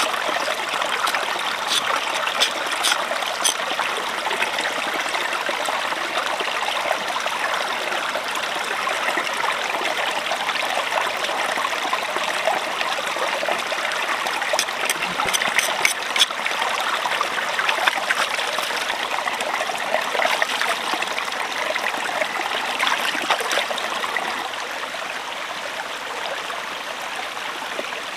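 A shallow mountain stream babbling and trickling over stones, with a few light clicks about two seconds in and again past the middle. It becomes a little quieter near the end.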